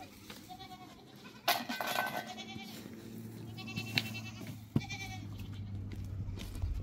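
Livestock bleating several times in wavering calls, with a loud rush of noise about one and a half seconds in and two sharp clicks later on. A low steady hum comes in about halfway through.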